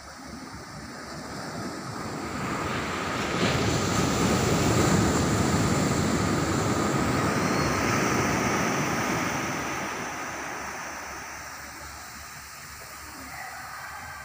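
Sea surf: a wave breaking and washing up the beach, swelling from a couple of seconds in, loudest around the middle, then fading away.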